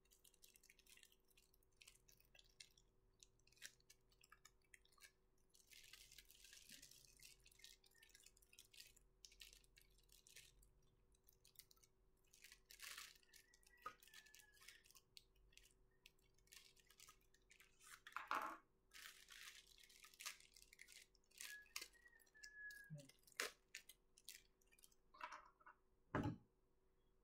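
Faint crinkling and rustling of thin plastic packaging bags as model airplane parts are slid out of them, with a few sharper knocks and taps of plastic pieces, the loudest near the end.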